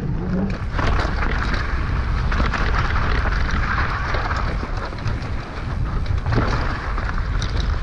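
Wind buffeting the microphone: a steady loud rushing with a heavy low rumble.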